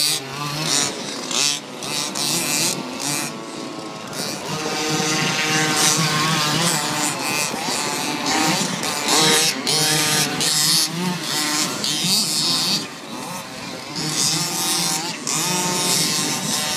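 Radio-controlled toy car's motor whining, its pitch rising and falling.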